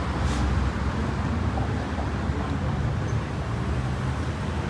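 Road traffic noise: a steady low rumble of passing vehicles with no single distinct event.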